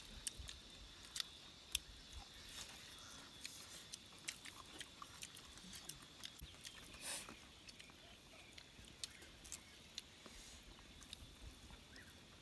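Quiet eating sounds: several people chewing and picking food by hand off banana leaves, with scattered small clicks and smacks and a short rustle about seven seconds in.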